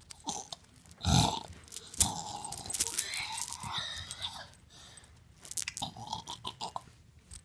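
Wet chewing and crunching mouth noises, as of someone munching with exaggerated chomps, with a short grunt about a second in and a sharp click at about two seconds.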